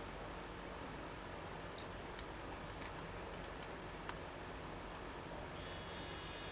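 A few faint, scattered clicks and taps of small laptop parts being handled, over a steady low hum. About five and a half seconds in, a faint high-pitched whine of several steady tones starts.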